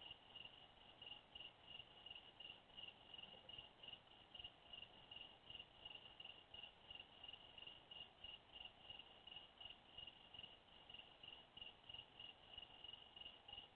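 Faint cricket chirping steadily in an even high-pitched rhythm, about three to four chirps a second.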